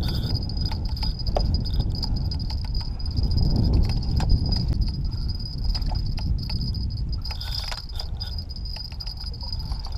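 Insects singing in a steady high drone over a low rumbling noise, with scattered clicks and handling sounds as a spinning reel is worked.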